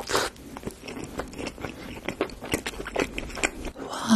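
A close-miked bite into a slice of pizza, then crunchy chewing of the crust with many small crackles and clicks. Right at the end comes a short voiced exclamation.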